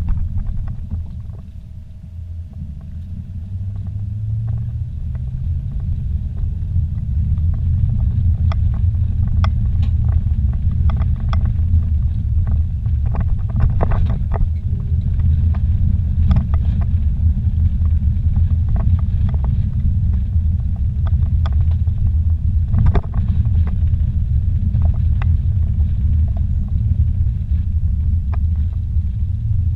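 Low rumble of a vehicle driving on a rough dirt road, heard inside the cabin, with scattered knocks and rattles from bumps and gravel. The rumble dips briefly near the start, then builds back up over the next several seconds and stays steady.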